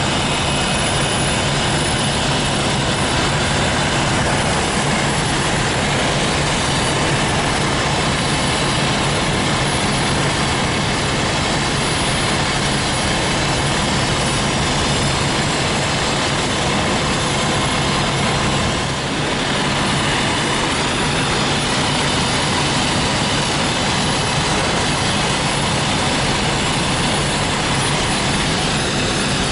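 Fire apparatus engines and pumps running steadily: a constant drone with a low steady hum, dipping briefly about two-thirds of the way through.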